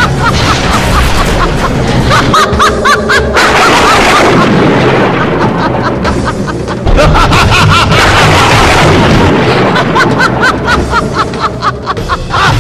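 Dramatic battle music laid over loud booms and crashing effects, with bursts of rapid sharp hits twice: a staged fight's soundtrack.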